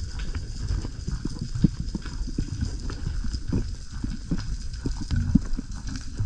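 Muffled underwater sound picked up through a camera housing as a spearfisher swims: irregular low thumps and knocks of water and gear moving, over a low rumble, with a faint steady high whine.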